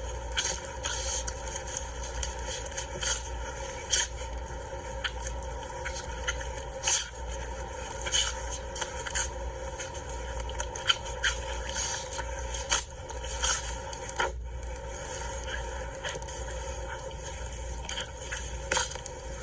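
An animal's short, sharp snorts and sneezes, many of them at irregular intervals, in an aggressive state.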